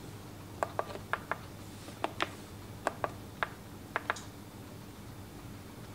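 About ten light, sharp clicks and taps of kitchen utensils and a dehydrator tray, several in quick pairs, as fruit purée is ladled out; they stop about four seconds in. A faint steady low hum runs underneath.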